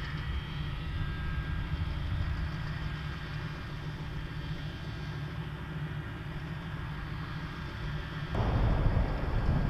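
M109A7 Paladin self-propelled howitzer's diesel engine idling with a steady low rumble and a faint whine while the cannon elevates. About eight seconds in, the sound becomes louder and rougher.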